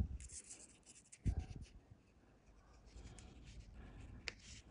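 Fingers handling braided fishing line and a hook while tying a carp hair rig: faint rubbing and scratching of the line, with two low thumps in the first second and a half and one sharp small click near the end.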